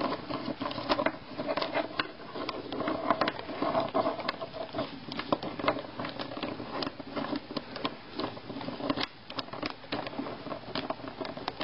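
Wooden snake cube puzzle being twisted and folded by hand into its finished cube: its small wooden blocks click and knock against each other in quick, irregular ticks.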